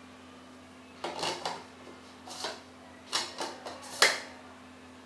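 Plastic lens hood being fitted and twisted onto the front of a Sigma 150-500mm telephoto lens: a few short bursts of scraping and clattering, then a sharp click about four seconds in as it seats, the loudest sound.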